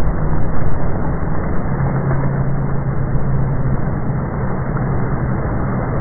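Loud rushing, surging water noise as a wave of foaming water spreads across a gym floor, with a steady low hum that comes in about a second and a half in.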